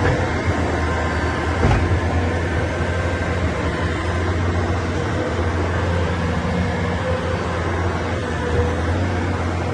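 Diesel engine of a Bobcat T590 rubber-tracked skid steer running at a steady speed, with one brief knock a little under two seconds in.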